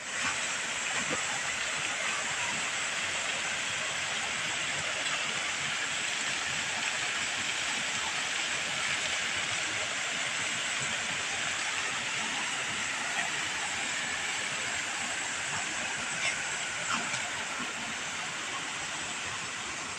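Steady rushing and splashing of swimming-pool water around a child swimming, with a few sharp clicks near the end.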